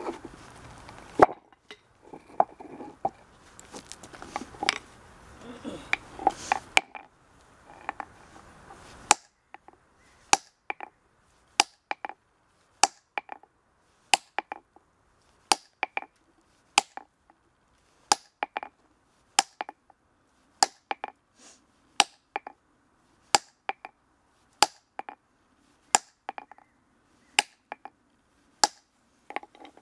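Steel hammer striking a granite block along its marked split line: for the first nine seconds or so, irregular knocks and scraping, then a steady run of sharp, ringing clinks, about one and a half a second.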